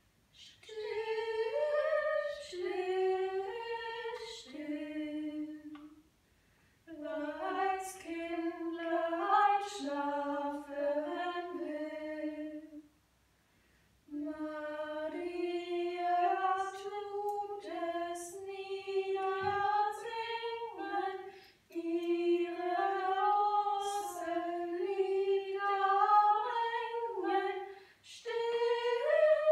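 A woman singing unaccompanied: a slow tune sung in phrases with short pauses between them.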